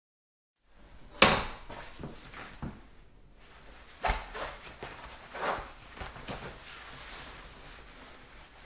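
A string of clunks and knocks in a small, echoey bathroom. The sharpest and loudest comes about a second in, lighter knocks follow, and another strong clunk comes about four seconds in. This is the handling that leads into someone peeing into a toilet.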